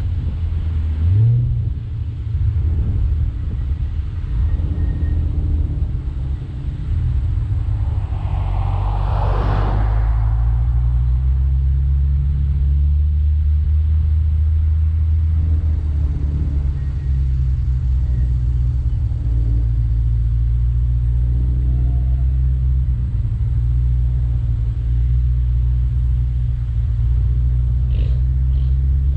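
Chevrolet C8 Corvette's mid-mounted V8 running steadily under way with a deep drone. Revs rise briefly about a second in, and a short whooshing swell passes about a third of the way through.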